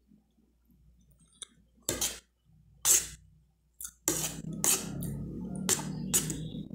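Metal spoon scraping and clinking against a plate of cuscuz as food is scooped up: about seven short separate strokes, the loudest about three seconds in, coming closer together in the last few seconds.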